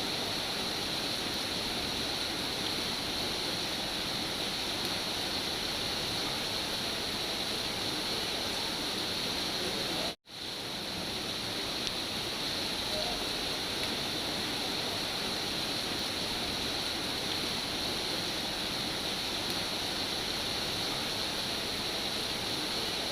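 Steady heavy rain, an even rushing hiss. About ten seconds in it cuts out suddenly for a split second and fades back in, like a loop seam in the recording.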